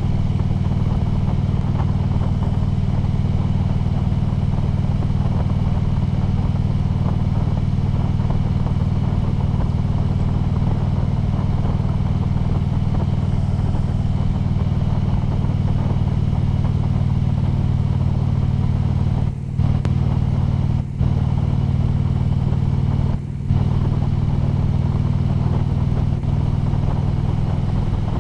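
Harley-Davidson Ultra Limited's V-twin engine running steadily under cruise control at about 35 mph, its pitch unchanging. The sound cuts out briefly three times about two-thirds of the way in.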